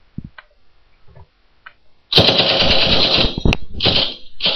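Submachine-gun fire sound effect. After a couple of seconds of faint scattered clicks, a long rapid burst of fire starts about halfway through and keeps going with brief breaks.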